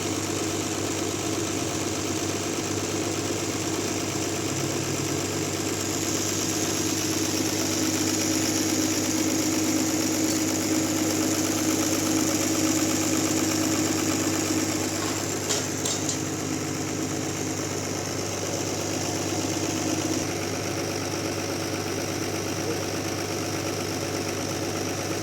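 Sawmill machinery running with a steady engine hum. A high hiss swells from about six seconds in and eases off between about fifteen and twenty seconds, with a few brief clicks near the middle.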